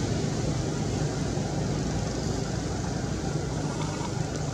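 A steady low rumble of background noise with a faint hum, holding even throughout, with no calls or knocks standing out.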